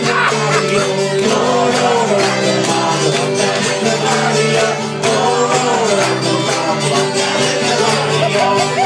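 Live folk song: men singing into a microphone over a strummed string instrument, with a tambourine-like jingle.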